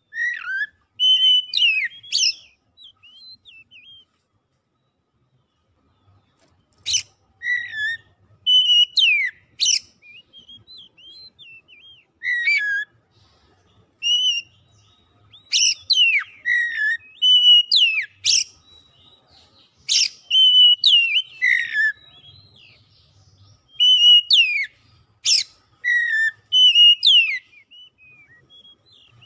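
Oriental magpie-robin singing: loud whistled phrases of sweeping, sliding notes and sharp chirps, each phrase a second or two long, with short pauses between them filled by softer notes.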